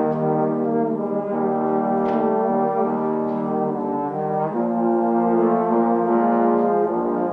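Trombone quintet playing a hymn in held chords, several trombones sounding together, the harmony moving to new chords about two seconds in and again around four and a half seconds.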